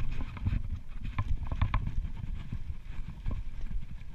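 Low wind rumble on the microphone with irregular clicks and knocks as a baitcasting reel and rod are handled.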